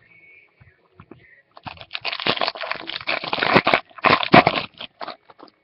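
Crinkling and crackling of a foil trading-card pack wrapper being torn open and handled, mixed with cards rustling. It starts about a second and a half in and runs for about four seconds.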